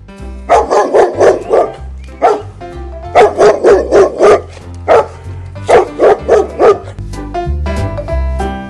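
Dog barking sound effect: three bursts of quick, repeated barks, four to six in each, over background music with a steady bass line.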